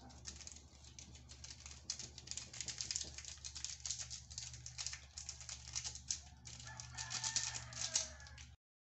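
Tuna pieces, onions and green chillies frying in oil in a metal wok: a dense, irregular crackle and sizzle. A chicken clucks in the background near the end.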